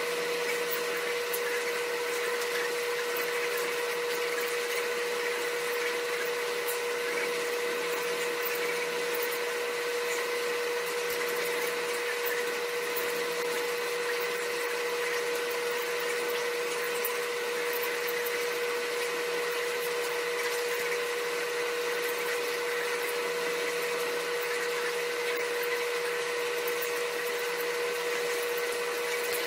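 Steady hum of a running motor, with a constant whine at one pitch that does not change.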